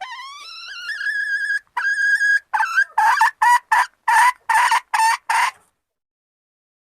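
Junglefowl hen calling: a drawn-out note that rises and then holds, a second held note, then a quick run of about eight short clucking notes. It is the hen's call soliciting mating.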